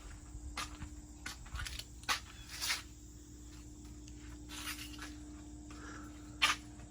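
Outdoor ambience: scattered short clicks and rustles, the sharpest near the end, over a steady low hum and a faint low rumble.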